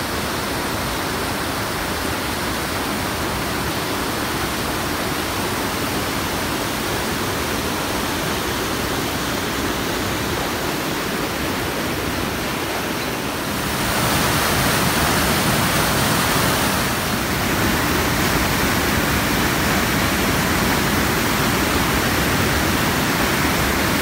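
Rushing white water of mountain waterfalls and a cascading creek, running high with late snowmelt: a steady roar that steps louder about fourteen seconds in.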